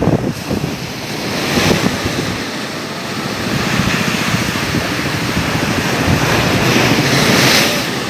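Rough sea surf breaking and churning into foam close by, with strong wind buffeting the microphone; the rush of water builds through the second half and eases just before the end.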